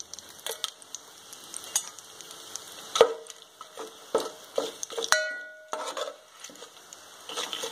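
Whole spices and bay leaves sizzling in hot ghee and oil in a pressure-cooker pot, stirred with a steel spoon that knocks against the pot several times, loudest about three seconds in. Just after five seconds a knock leaves the pot ringing briefly.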